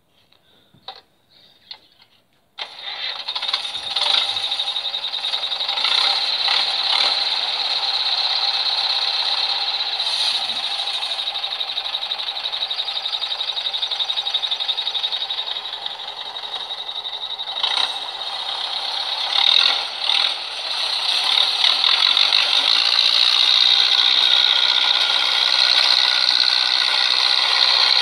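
Zetor tractor's diesel engine running hard with a rattle, cutting in suddenly about three seconds in after a few faint clicks and then running on with small rises and falls in level.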